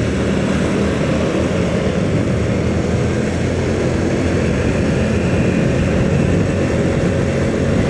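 Engine of the vehicle carrying the camera running steadily on the road, with road and wind noise.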